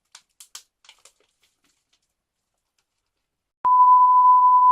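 A few faint rustles of packaging, then a loud, steady single-pitch beep starting about three and a half seconds in and lasting just over a second: a censor bleep laid over a swear word.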